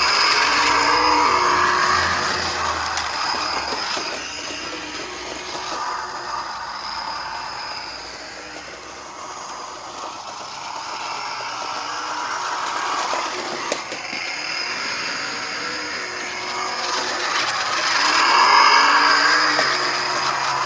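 New Bright 1:10 Grave Digger RC monster truck running around a wood-chip course. It is loudest about a second in and again near the end as it passes close, and fades in between while it runs farther off.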